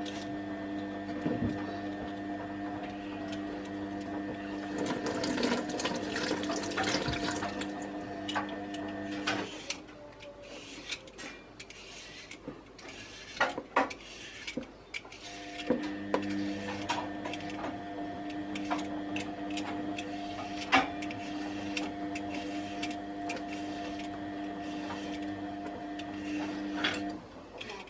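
A steady machine hum from a kitchen appliance, cutting out for about six seconds in the middle and stopping near the end, with scattered light clicks of a small knife cutting carrot and green pepper by hand over a bowl.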